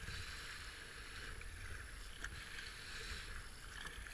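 Water rushing and splashing around a racing kayak's hull as it runs down a shallow rapid, the splash swelling with each paddle stroke.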